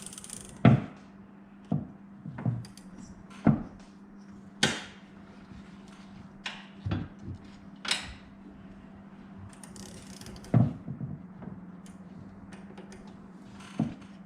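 Wayne Dalton Torquemaster Plus winding gear clicking tooth by tooth as the torsion spring's tension is released: about a dozen sharp clicks at uneven intervals. A steady low hum runs underneath.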